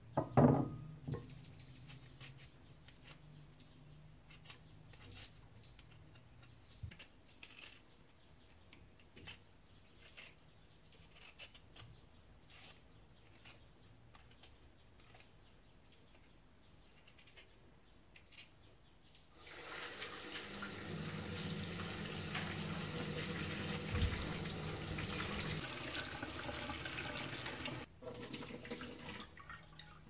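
A knock near the start, then faint scraping strokes of a hand-held Y-peeler on potatoes every second or so. About two-thirds of the way in, a kitchen tap runs water into the sink for about eight seconds and is shut off abruptly.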